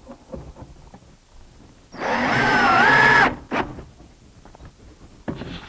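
A cordless drill-driver runs for about a second and a half, driving a screw into the cabinet. Its whine dips in pitch under load, recovers, then stops abruptly. Light handling knocks come before and after.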